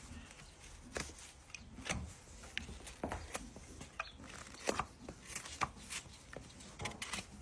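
Farrier's tools working on a draft horse's hoof: irregular sharp clicks and snaps as hoof horn is cut and pared.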